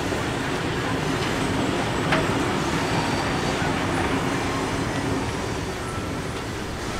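Steel wheels of passenger carriages rolling along the track: a steady rumble with a brief sharp click about two seconds in.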